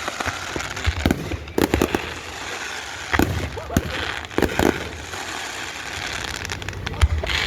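Fireworks going off: irregular sharp bangs, several close together about a second and a half in and again between three and five seconds, over a continuous crackling hiss.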